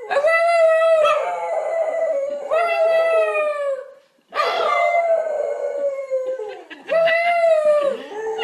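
A dog howling in a string of long, drawn-out notes, each one to two seconds, with a short break about four seconds in. A woman's voice howls along with it.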